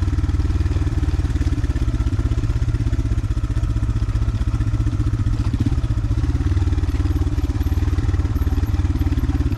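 Motorcycle engine running steadily at low speed, its exhaust pulsing evenly.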